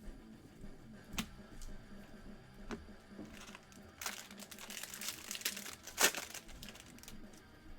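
Trading-card pack wrapper crinkling and cards being handled: a few sharp clicks, then a denser stretch of crackling about four seconds in, ending in a louder snap.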